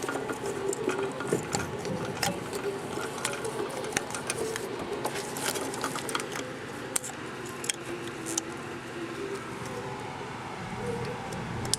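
Irregular light clicks and rattles of hands and tools working on parts in a cramped car engine bay, over a steady low hum.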